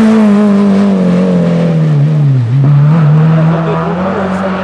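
A rally car's engine at full throttle as the car passes close and pulls away. Its pitch falls through the first couple of seconds, dips sharply about two and a half seconds in, then climbs back up and holds as the car accelerates away.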